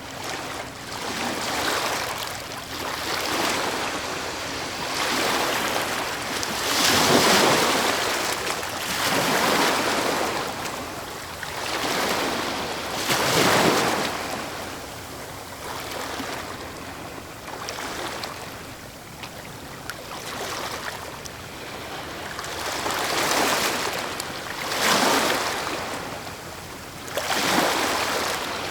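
Medium waves breaking on a fjord shore, recorded close: a wash of surf that swells and falls back every few seconds, with the strongest breakers about a quarter of the way in, near halfway, and twice near the end.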